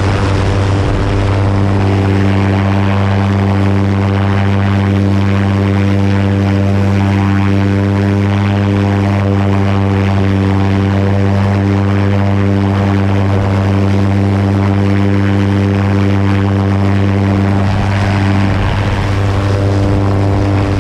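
Helicopter in low flight, heard close up from the airframe: its rotors and engine make a steady, loud drone with a strong low hum and a stack of steady tones, over a rush of wind.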